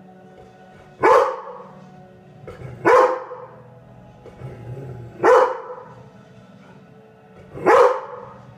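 Young Golden Retriever barking at the television: four loud single barks, spaced about two seconds apart.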